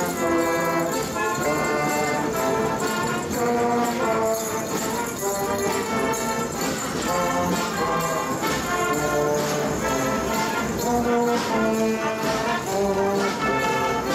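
Elementary-school marching band playing a march tune on the move: trombones, saxophones, clarinets, flutes and euphoniums in a steady melody over a regular drum beat.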